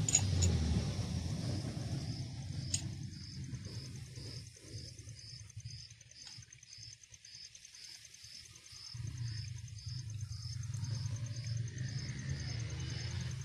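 An insect chirping steadily in a high, even rhythm of about two chirps a second, over a low rumble that fades for a few seconds in the middle and then comes back.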